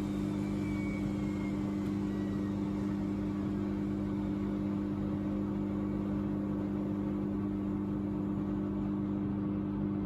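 Front-loading washing machine with its drum spinning: a steady motor hum with a whir over it.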